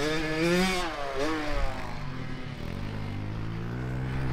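A 65cc two-stroke youth motocross bike is ridden: its engine revs high near the start, drops off after about a second and a half, then runs on at a lower, steadier note.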